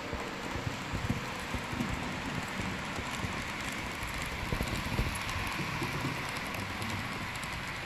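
Model train, an E.645 locomotive hauling covered coil wagons, rolling along the layout track close by. It makes a steady rushing rattle of small wheels on rail, with many small irregular clicks.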